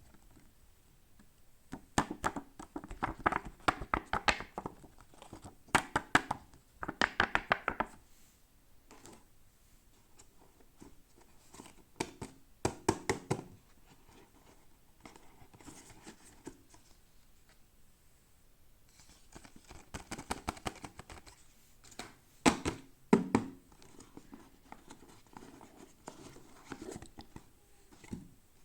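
Toy packaging being opened by hand: bursts of tearing and crinkling with sharp clicks and taps, separated by quieter pauses.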